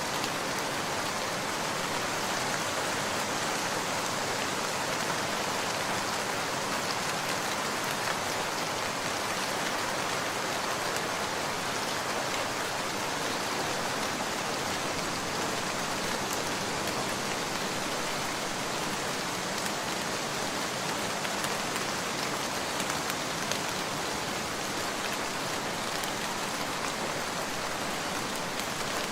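Steady rain falling, an even hiss with scattered faint drop ticks and no change in strength.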